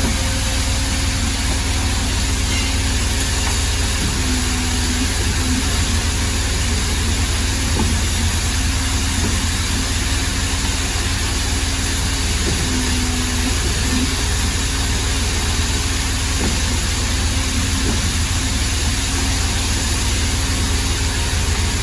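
Pedrazzoli Bend Master 75 CNC tube bender running idle: a steady machine hum with a low drone and an even hiss, plus a mid-pitched tone that changes briefly about three times.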